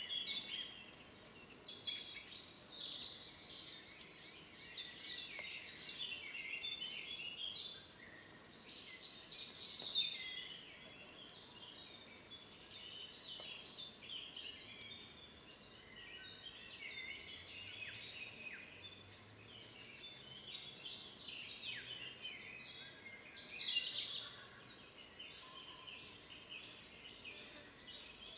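Several songbirds singing at once in woodland, a dense chorus of overlapping high-pitched songs and calls that carries on throughout.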